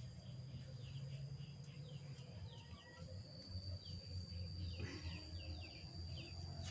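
Faint outdoor ambience: a steady high-pitched insect drone with many short, falling bird chirps repeated over it, and a low rumble underneath.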